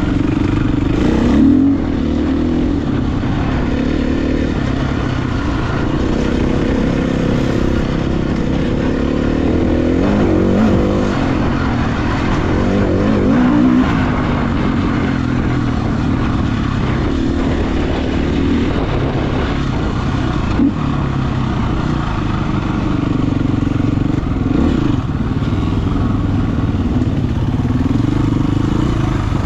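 Husqvarna FE350 single-cylinder four-stroke dirt bike engine being ridden, its pitch rising and falling again and again as the throttle opens and closes.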